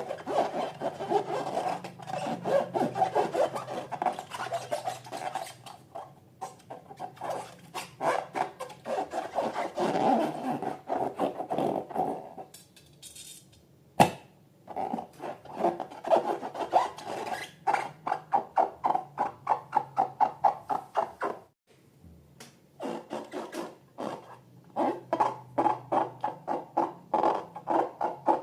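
Slime worked by hand in quick, repeated rubbing and squishing strokes. It pauses twice, and there is one sharp click about halfway through.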